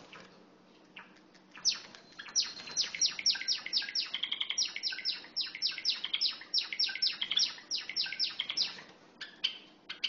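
Java sparrow singing: a quick run of short, falling, clicking notes, about four a second, beginning about two seconds in and lasting some seven seconds, with a few single clicks before and after.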